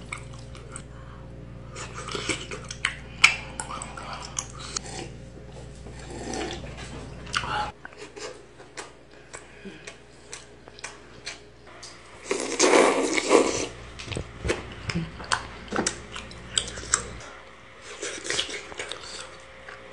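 Close-up chewing and biting of tteokbokki rice cakes and kimbap, with many small mouth smacks and chopstick clicks. A louder noisy stretch comes about two-thirds of the way through.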